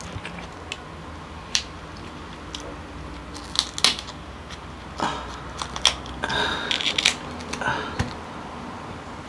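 Kitchen scissors cutting through the spiny shell of a cooked king crab leg, with the shell cracking and crunching: scattered sharp snips and cracks, thicker in the second half, with a short crackling stretch a little after the middle.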